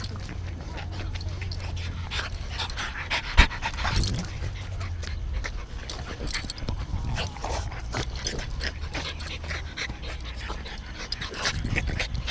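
Two French bulldogs play-wrestling close to the microphone: breathing, panting and scuffling, with many small clicks and a sharp knock about three and a half seconds in.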